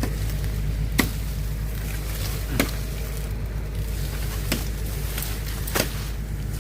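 Diesel engine of a Komatsu PC200-8 hydraulic excavator running steadily, with several sharp knocks at irregular intervals.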